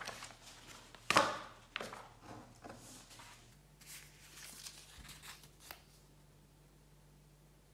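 Small household handling noises: rustling, clicks and scrapes, with one louder scrape about a second in, dying away around six seconds, over a faint steady low hum.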